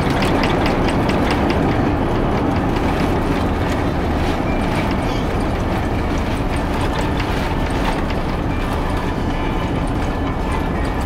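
Airbus A350-900 on the ground after landing, heard from inside the cabin: a loud, steady rumble of wheels and air, with a regular run of bumps about three a second in the first five seconds or so that then thins out, typical of the landing gear rolling over runway joints or centreline lights.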